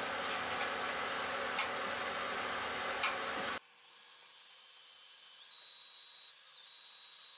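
A hammer striking a center punch on steel, two sharp taps about a second and a half apart, marking the spot to drill. Then a cordless drill runs with a thin, high motor whine that shifts in pitch a couple of times.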